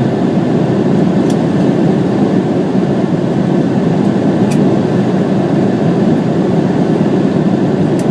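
Steady, loud rumble of an Embraer 170 airliner's two GE CF34 turbofan engines and airflow, with a few faint clicks.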